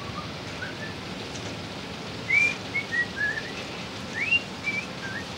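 A string of short, clear whistled notes sliding up and down in pitch, starting about two seconds in, over a steady hiss.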